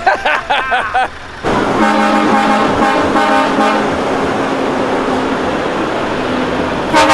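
Truck air horns blowing: a long horn held for several seconds, with a rapidly repeating pattern over it for the first couple of seconds, then a louder blast near the end. A man laughs at the start.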